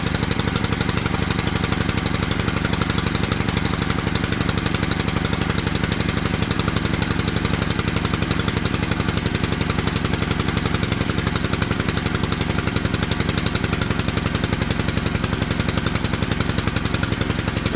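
Small gas engine of a Ryobi 3000 PSI pressure washer running steadily at a rapid, even firing rhythm.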